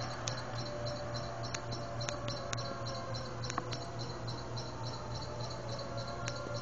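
Insects chirping in a fast, even rhythm, with a faint steady tone and a low hum underneath.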